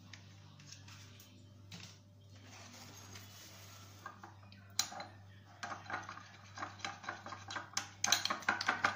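A spoon clinking against a small glass bowl as it stirs mayonnaise into ketchup. The clinks start about five seconds in and come faster and louder near the end, over a low steady hum.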